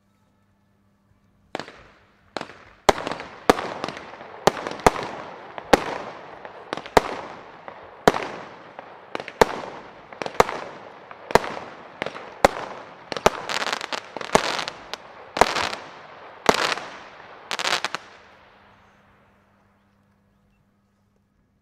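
Weco Little Inferno firework battery (16 mm, 15 shots) firing. A quick run of sharp bangs from the tubes launching and the shells bursting, with crackling after the breaks. It starts about a second and a half in and dies away near the end.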